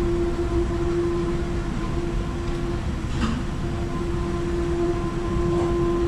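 Steady drone of mechanical-room machinery: a strong pitched hum over a continuous low rumble. The hum fades briefly about halfway through.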